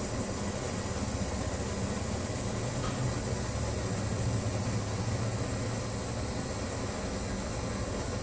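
Brass kerosene pressure stove (Primus-type wabour) burning steadily: an even hiss of the pressurised burner with a low rumble underneath.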